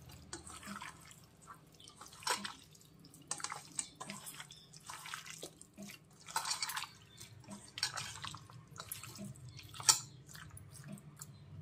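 Hands squishing and kneading chicken pieces in a yogurt and spice marinade in a steel bowl: irregular wet squelches with a few sharper clicks.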